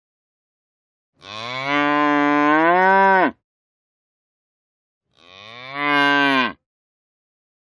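Cow mooing twice: a long moo of about two seconds whose pitch rises near its end, then a shorter moo of about a second and a half that swells in loudness.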